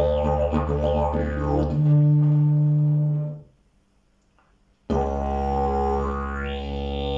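Fiberglass travel slide didgeridoo droning, its overtones wavering in a quick rhythm, then moving up to a higher steady note at about two seconds. The drone stops for about a second and a half, starts again suddenly, and its overtones sweep upward near the end.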